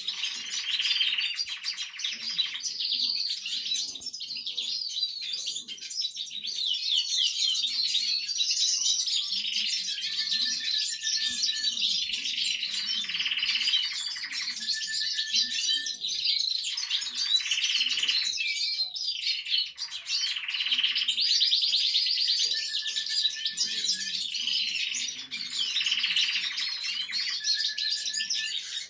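Young canary practising its first song: long, rambling runs of rapid trills and chirps, broken now and then by a short held whistled note.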